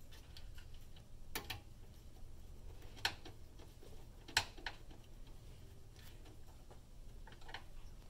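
Screwdriver and screws clicking against the metal expansion-slot bracket of a PC case while a graphics card is screwed in place: a few sharp, scattered metallic clicks and ticks, the loudest about three and four and a half seconds in, over a faint steady low hum.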